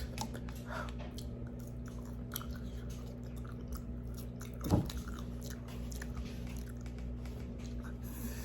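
A person chewing and biting crunchy fried chicken close to the microphone, with many small crunches and mouth clicks. One louder short sound comes about halfway through.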